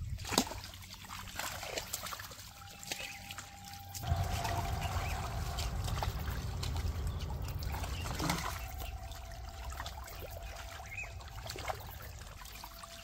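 Water trickling and splashing in shallow pond water where a fishing net is being worked, with a sharp knock about half a second in. A low rushing noise grows louder for about four seconds in the middle.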